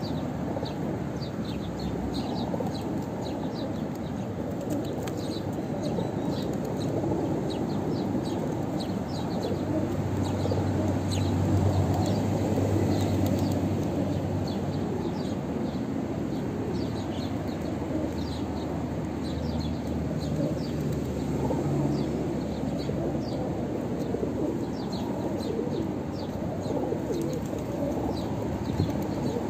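A flock of feral pigeons feeding: wings flapping and cooing over a steady low rumble of background noise, with many short, high chirps scattered throughout.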